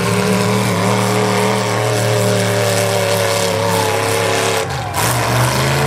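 Engines of full-size demolition derby cars running loudly with a steady, droning pitch. About five seconds in the sound dips briefly and resumes at a different pitch.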